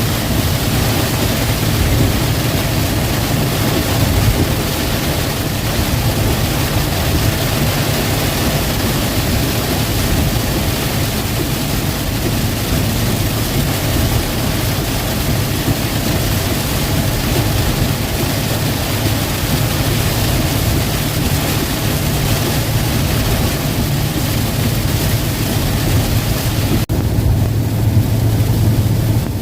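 Steady hiss of heavy rain and road spray on a vehicle driving at speed, heard from inside the cab over the engine's low drone. About 27 s in, the sound changes suddenly to less hiss and a stronger engine hum.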